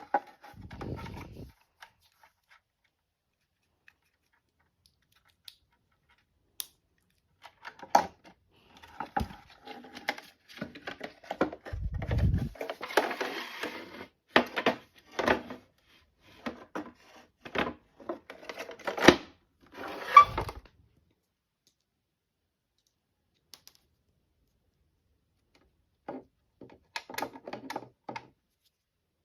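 Irregular clicks, knocks and rattles of hard objects being handled, in two spells with quiet between; no alarm tone sounds.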